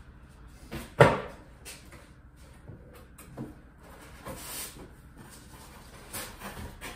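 Cardboard boxes being handled: one sharp knock about a second in as a small box is set down on the freeze dryer's top, then softer bumps and rustles of cardboard as a large shipping box is rummaged in and its flap moved.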